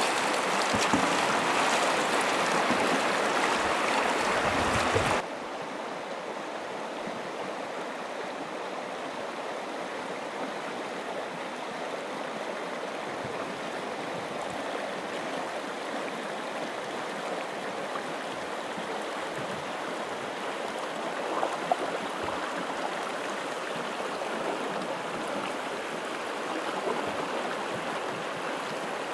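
River rapids rushing over rocks, loud and close for about five seconds, then cutting suddenly to a softer, steady rush of moving water.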